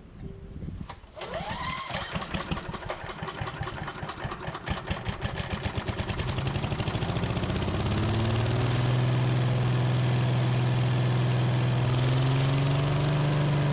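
Wood chipper's small gasoline engine starting about a second in, firing unevenly at first, then picking up speed and settling into steady running by about eight seconds. It now runs on its own, with the carburetor's diaphragm spring and cap refitted the right way up.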